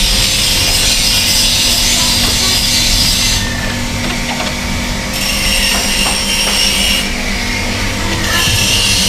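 Water spray hissing against the air conditioner's outdoor unit, over a steady motor hum. The spray stops abruptly twice, each time for about a second and a half.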